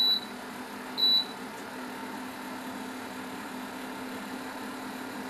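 Two short high beeps from the EveryCook cooker's induction heater, about a second apart, then a steady machine hum. The beeping comes from the controller switching the induction heater off and on to make sure it is on, because its status cannot yet be read reliably.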